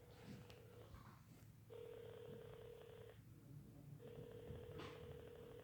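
Faint telephone ringback tone as a call rings out: a steady single tone that stops about a second in, then sounds twice more for about a second and a half each, with a short pause between.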